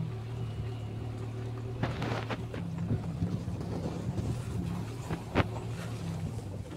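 Maruti Gypsy 4x4's engine running steadily at a low pitch while the vehicle climbs a snowy road, with a few sharp knocks, the loudest about five seconds in.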